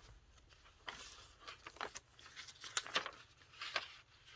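Paper pages of a handmade junk journal being turned and handled: soft rustling with a string of sharper, irregular flicks and crinkles.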